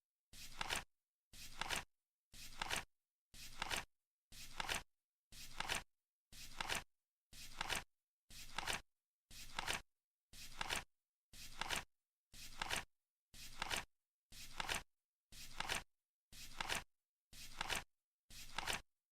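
Flip-clock timer's number cards flipping once a second, each a short rustle that ends in a sharp clack, with silence between.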